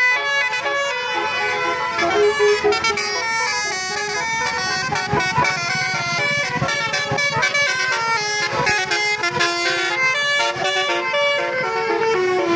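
Telolet bus horns: multi-tone air horns on buses playing quick tune-like runs of notes, one note after another without a break.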